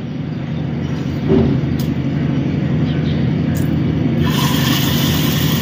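Chana dal batter dropped into hot oil in a frying pan starts sizzling about four seconds in, over a steady low machine hum. A couple of faint clicks come before it.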